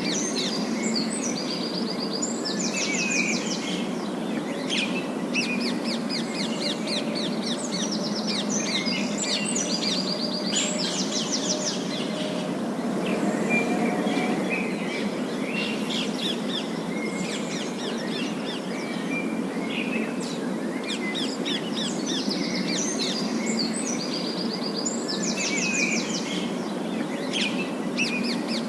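A group of parakeets chirping and chattering in quick, trilling bursts, thinning out for a few seconds midway, over a steady low background noise.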